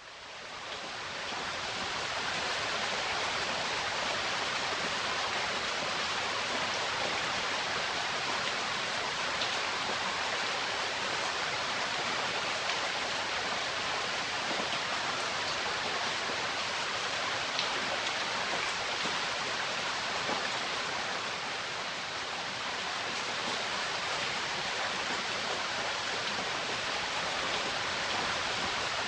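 Waterfall: a steady rush of falling water that fades in over the first two seconds, then holds even.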